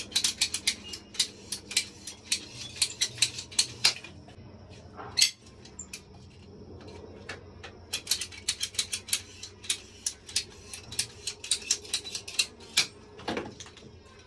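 Rapid, irregular metallic clicking as a hand tool tightens a threaded valve fitting on plumbing pipework, in two runs of a few seconds each, with a louder knock after each run.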